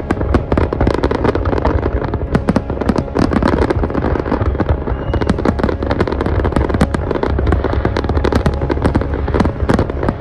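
Fireworks display: a dense, continuous barrage of sharp bangs and crackling, many reports a second over a steady low rumble.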